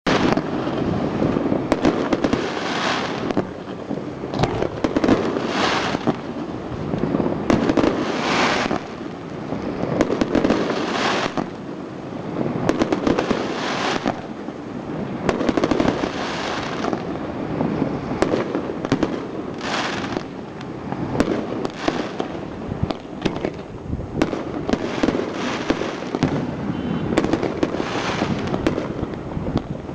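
Fireworks display: a continuous barrage of shell bursts, one after another every second or two, with crackling between the bangs.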